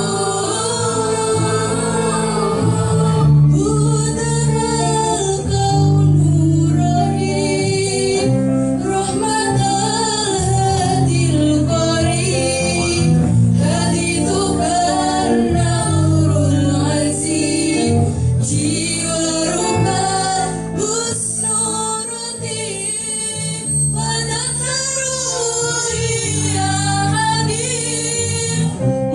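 Choir of young women singing together over instrumental accompaniment that holds long, steady low notes.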